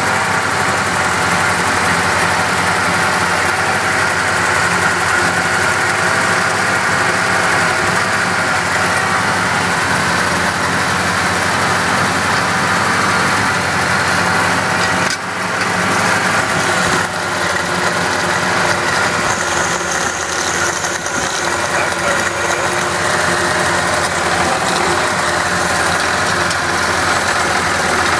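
1974 BMW 2002's 2.0-litre M10 four-cylinder engine idling steadily, heard close to its air cleaner. It is still on the fast idle of a cold start after months of sitting.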